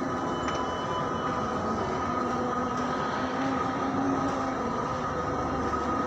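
Metro train running: a steady rumble with a held, even whine.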